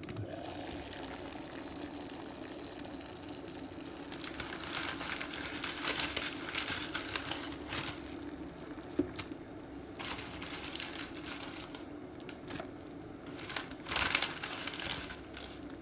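Water heating and simmering in an electric multi cooker over a steady hum, with intermittent crinkling and clicks. There is a louder burst about 14 seconds in as blocks of dry instant noodles go into the water.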